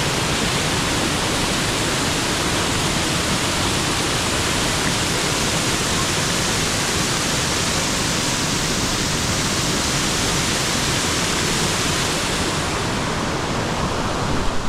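Waterfall roaring close by: a loud, steady rush of falling water.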